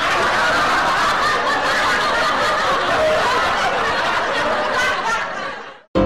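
Canned laughter: a crowd of people laughing together, cutting off suddenly near the end.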